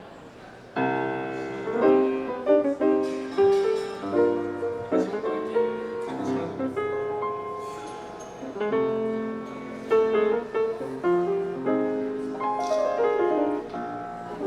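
Jazz lounge piano playing a slow sequence of chords and melody notes, coming in about a second in.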